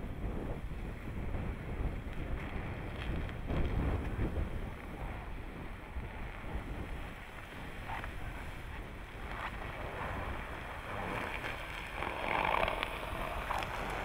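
Jeep Cherokee SUV driving slowly over packed snow, with wind buffeting the microphone throughout; the tyre and engine noise grows louder near the end as it passes close.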